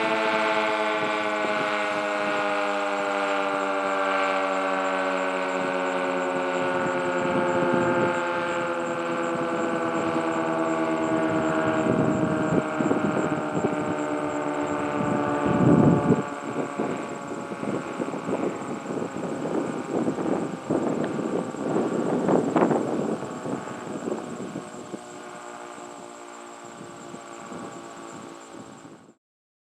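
Outdoor warning siren winding down, its pitch slowly falling and its sound fading, with irregular bursts of noise over the middle part.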